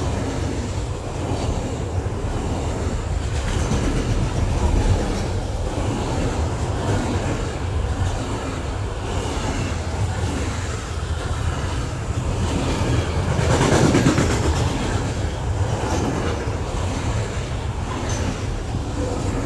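Train rolling past: a steady rumble of wagons on the rails, swelling to its loudest about two-thirds of the way through.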